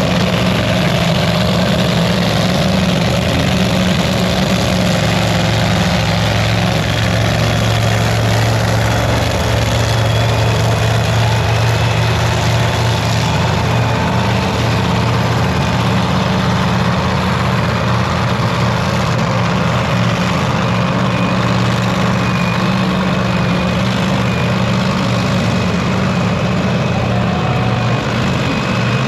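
A large engine idling steadily and loudly, with a deep even hum and no revving.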